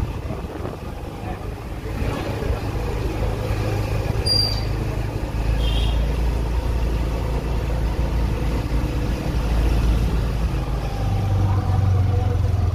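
A motor vehicle engine running steadily: a low rumble and hum that grows stronger near the end. Two brief faint high squeaks come near the middle.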